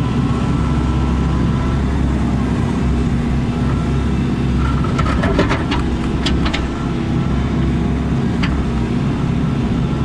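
Excavator's diesel engine running steadily. About halfway through comes a quick cluster of sharp knocks, with one more near the end, as the bucket works against a thick concrete slab.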